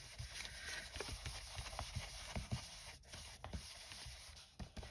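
Faint rubbing and soft, irregular light taps of a foam ink-blending tool being swirled and dabbed over cardstock on a desk.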